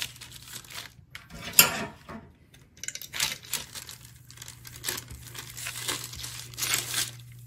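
Parchment paper crinkling and rustling as a small handheld plastic pastry roller is pushed back and forth over soft dough lying on it, in uneven strokes. A sharp knock about one and a half seconds in is the loudest sound.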